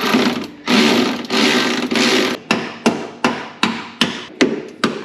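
Work with a hand-held power tool under a car's transmission: the tool runs for about two seconds, then comes a steady series of sharp knocks, about two and a half a second.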